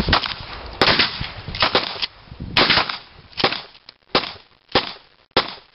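A Mossberg shotgun firing slugs in a rapid string of about eight or nine loud shots, one every half to three-quarters of a second. Each shot has a short echoing tail.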